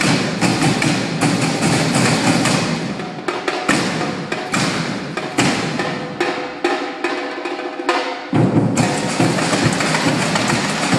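Percussion ensemble of snare and bass drums playing a fast, dense stick rhythm. The low drums drop out twice, leaving the higher, clicking stick pattern, and come back in strongly about eight seconds in.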